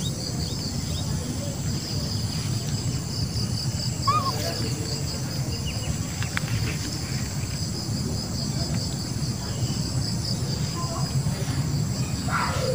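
Insects chirping steadily in a fast, even pulsing trill, over a low steady noise. A couple of short high chirps come about four seconds in and again near the end.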